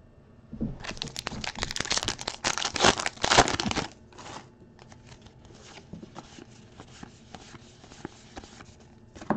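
A 2023 Topps Allen & Ginter trading card pack's wrapper being torn open and crinkled, loud for about three seconds. Then quieter rustling and light clicks as the cards are flicked through one by one, with a sharp click near the end.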